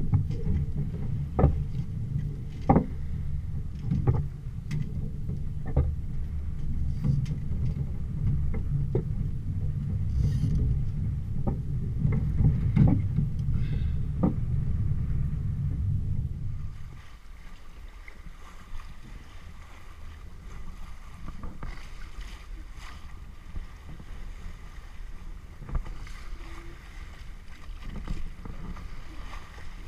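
A Catalina 22 sailboat under sail in a strong breeze: wind buffets the microphone in a heavy low rumble, with sharp knocks about every second and a half. About halfway through this gives way to a quieter, even rush of water along the hull with small splashes of waves.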